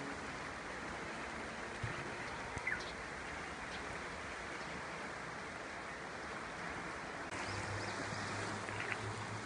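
Steady rush of river water flowing below, with a few short bird chirps in the first few seconds; a low steady hum joins about seven seconds in.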